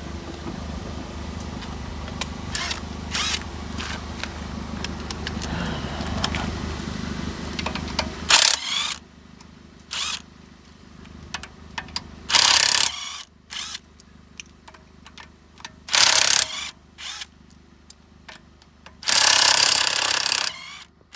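A low steady hum for about eight seconds that cuts off suddenly. Then a cordless impact wrench fires five times on the wheel's lug nuts, each burst short (the last about a second and a half long).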